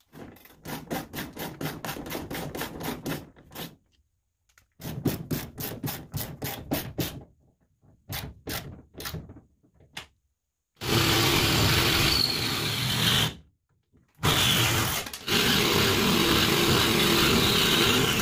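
A ratchet wrench clicking rapidly in three short runs as a nut is turned down on a bolt, then a reciprocating saw running in two long steady stretches as it cuts into plywood.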